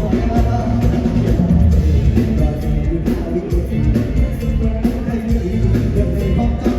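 Very loud live band music heard from in front of the stage: singing over a drum kit, with heavy bass.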